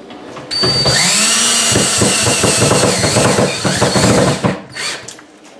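Cordless drill spinning up and running steadily for about four seconds with a steady whine, then winding down, driving a mounting screw that fastens the oven frame to the cabinet.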